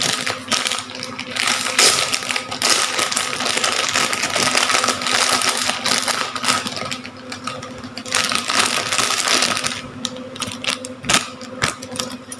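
Thin clear plastic bag crinkling and crackling as hands open it and work a small figure out of it, a dense run of crackles that eases off near the end.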